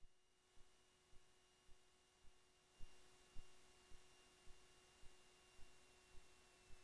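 Near silence on a cockpit audio feed: a faint steady electrical hum with faint regular ticks about twice a second.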